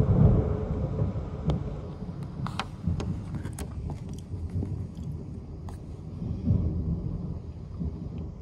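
Thunder rumbling, loudest right at the start and fading over a few seconds, then swelling again about six and a half seconds in. Scattered sharp ticks sound over it.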